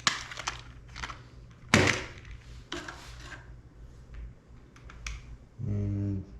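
Hands handling the plastic drone body and its parts: a run of light clicks and taps, with one louder knock about two seconds in. Near the end comes a short, steady low hum lasting under a second.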